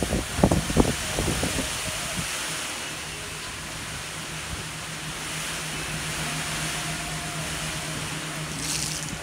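Steady motorboat engine drone under a constant hiss of heavy rain and wind, with irregular wind buffeting on the microphone in the first second or so.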